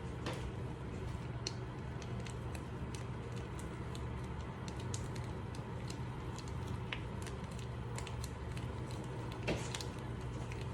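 Cooking sounds at the stove: a steady low hum under scattered light clicks and taps while mushroom stock concentrate goes into a heating cream sauce.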